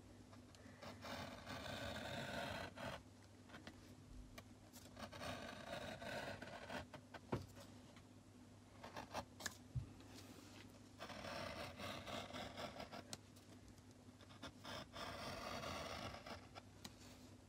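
Faint scratching of a pencil drawn over lines on paper, in four strokes of about two seconds each, with a few light taps between them.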